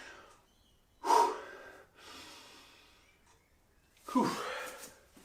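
A man breathing hard after exercise: two loud, sudden exhales about three seconds apart, the second voiced like a sigh, with a quieter breath between them.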